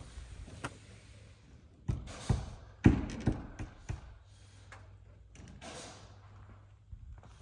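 Footsteps on loose gravel: a run of about five steps starting about two seconds in, then a few softer scuffs.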